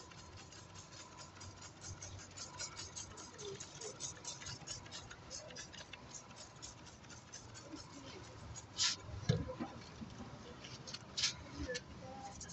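Cleaner being sprayed and worked by hand into a brake-dust-coated alloy wheel: a fast, faint run of scratchy crackles from the scrubbing, with short hissing bursts from a trigger spray bottle a little past the middle and again later.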